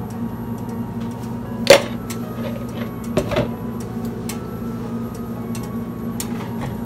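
Metal ladle knocking against a steel pot of milk that is curdling with yogurt on the stove: one sharp clink about two seconds in and a duller knock a second or so later, with a few faint ticks, over a steady low hum.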